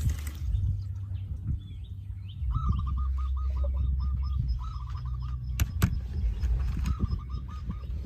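A bird calling in short rapid trills, three times, over a steady low rumble. Two sharp clicks come a little past the middle.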